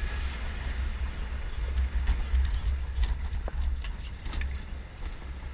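Humvee driving along a rough street, heard from its roof: a low, uneven rumble with irregular knocks and rattles.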